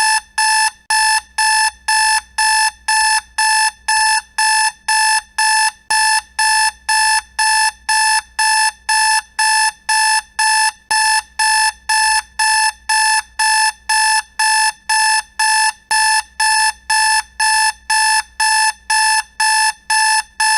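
Electronic alarm clock beeping: a steady run of identical short beeps at one pitch, about two a second.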